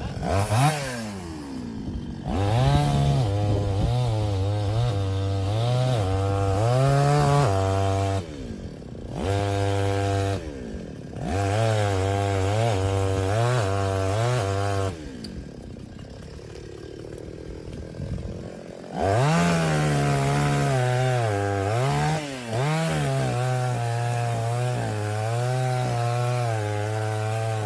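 Small engine, restarted after flooding, running and being revved up and down again and again, dropping back to a low idle several times, longest for a few seconds in the middle.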